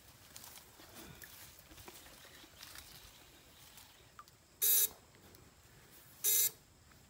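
Homemade backpack electrofishing unit buzzing twice in short, loud bursts about a second and a half apart, each about a third of a second long, as current is sent through the pole electrodes in the water.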